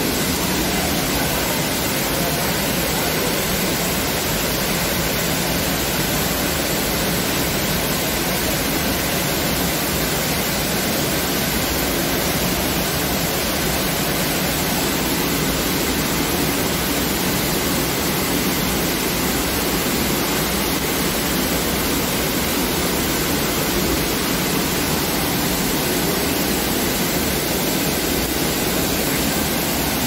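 Waterfall pouring into a rock pool: a steady, even rush of falling water.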